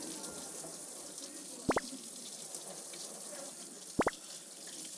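Kitchen tap running steadily into a stainless-steel sink as a pear is rinsed and rubbed by hand under the stream. Two short, sharp knocks stand out, one under two seconds in and one about four seconds in.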